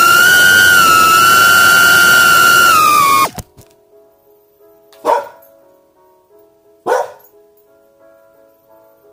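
A long, loud, high-pitched tone, wavering slightly, slides down and cuts off abruptly about three seconds in. Then a small dog gives two short yips about two seconds apart over faint steady background tones.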